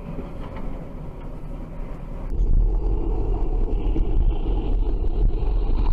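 Road and engine noise heard from inside a moving vehicle: a steady rumble that changes abruptly a couple of seconds in to a deeper, heavier low drone.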